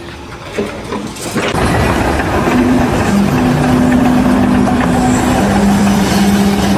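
A heavy vehicle's engine running, loud and steady from about a second and a half in, after a quieter start.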